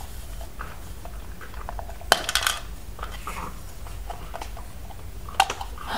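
Hard plastic toy pieces clicking and knocking as the hollow Mrs. Potato Head body is handled and its back storage door is pried open, with a sharper click about two seconds in and another near the end.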